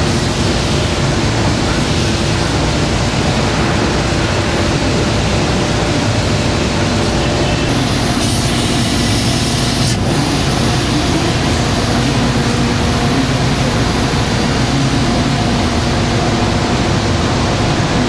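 Loud, steady factory-floor machinery noise: a continuous rumble and hiss with a low hum. About eight seconds in comes a hissing blast of compressed air lasting about two seconds, typical of an air blow gun on a coiled hose.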